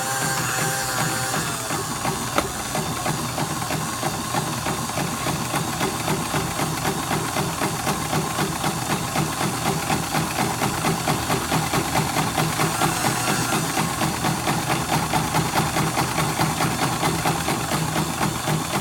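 Antique Singer 15-88 sewing machine, converted to electric with an added motor, running steadily: a motor hum under a quick, even mechanical clatter from the machine's moving parts. The motor sounds really strong while the machine itself runs reasonably quietly on worn belts, in need of cleaning and lubrication.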